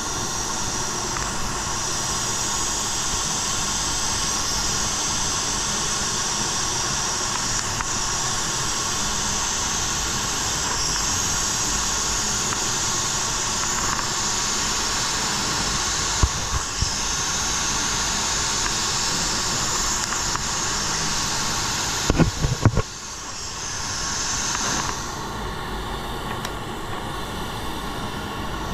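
Steady air hiss of an automotive paint spray gun spraying a panel. A few knocks come about 16 seconds in and a cluster about 22 seconds in, after which the hiss drops and grows quieter.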